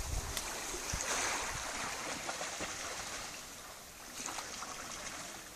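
Small waves washing onto a pebble beach, a steady sea wash that swells about a second in and eases off toward the end.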